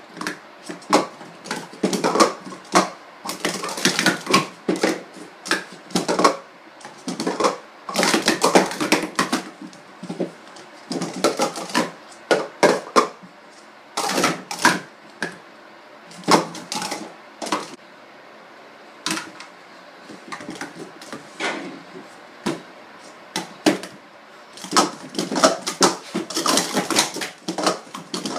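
Sport stacking cups clattering as they are rapidly stacked up and brought down on a stacking mat: quick runs of dense clacking clicks, broken by short pauses between runs.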